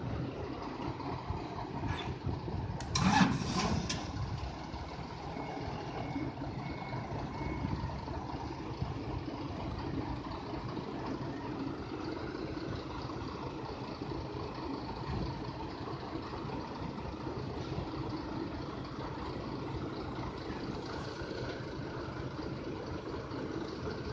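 Forklift and truck engines idling steadily, with a loud metallic clatter of steel wire-mesh sheets knocking together about three seconds in. A few faint short high beeps sound around six to seven seconds in.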